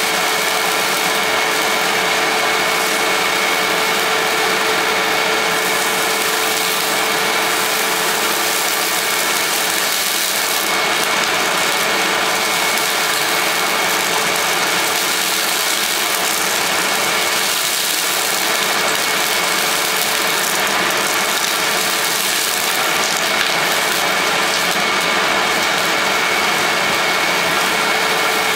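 Hoover WindTunnel self-propelled bagless upright vacuum (model U6630) running steadily on hose suction, a constant rush of air with a steady high whine.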